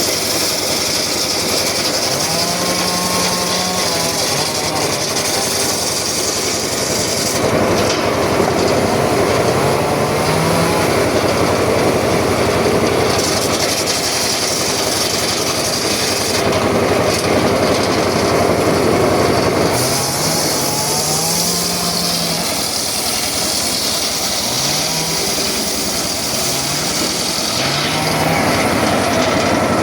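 Circular saw running and cutting through very hard sogho wood: a loud, steady machine noise that grows heavier about seven seconds in, with short rising pitched sounds over it now and then.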